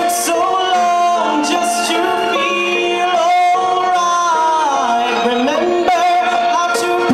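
A young man singing into a handheld microphone, holding long notes. About five seconds in, his voice slides down in pitch and comes back up.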